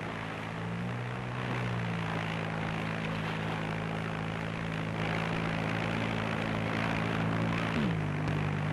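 Amphibious paddle boat's motor running with a steady drone over a hiss. Near the end the pitch drops slightly and then holds steady.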